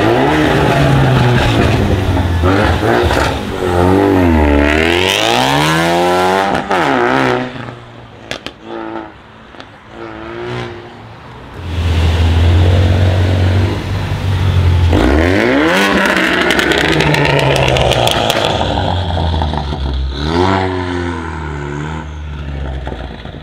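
Ford Mustang EcoBoost's tuned 2.3-litre turbo four-cylinder with a Roush exhaust, revved hard several times, each rev climbing and falling back, with a few sharp cracks. About 12 s in it is held at steady revs, typical of launch control. At about 15 s it launches, revs climbing steeply through the gears, with another short rev burst near 20 s.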